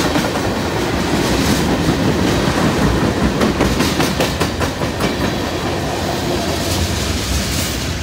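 Freight train of tank cars passing at speed, its wheels clacking over the rail joints over a steady rumble.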